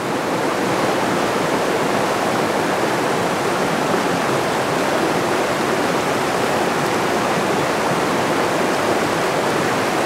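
Steady rushing of shallow water running over rocks.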